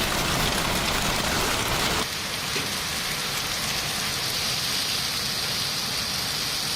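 Rain falling, a steady hiss. About two seconds in it changes abruptly to a thinner, higher hiss.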